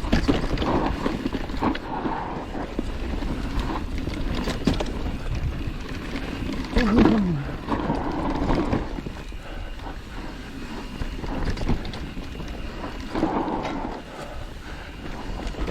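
Mountain bike riding down a dirt singletrack: tyre noise on dirt and loose rock, rattles and knocks from the bike over rough ground, and wind on the microphone. A short falling, voice-like sound about seven seconds in.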